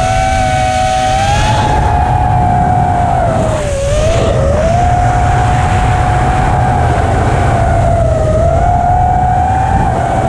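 Motors of an FPV chase drone whining steadily in flight over wind rush on the microphone. The pitch dips briefly about four seconds in and again near eight seconds as the throttle changes.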